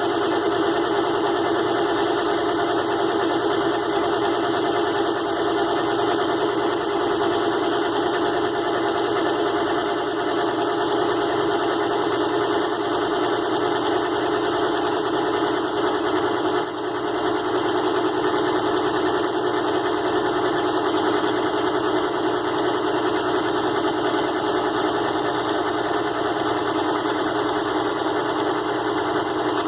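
ZhouYu 6-in-1 mini lathe's small DC motor running steadily while turning aluminium stock, with a brief dip in level about 17 seconds in.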